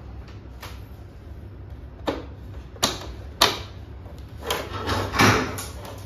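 Plastic clicks and scraping as the front panel and air filters of a split air conditioner's indoor unit are handled: three sharp clicks between about two and three and a half seconds in, then longer rubbing and scraping near the end.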